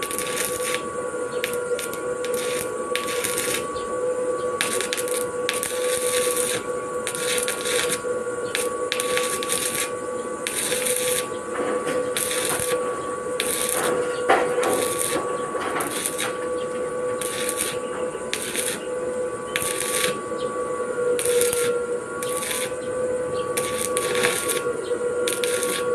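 Electric arc welding with a portable inverter welder: the arc crackles and sizzles in irregular spurts as the weld is laid, over a steady whine from the welding machine.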